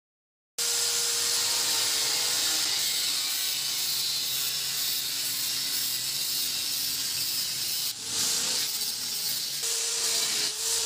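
Angle grinder with a cutting disc slicing through the sheet-steel body of an old refrigerator: a loud, steady, hissing screech with a faint motor whine underneath. It starts abruptly about half a second in, dips briefly about eight seconds in as the cut is repositioned, then carries on.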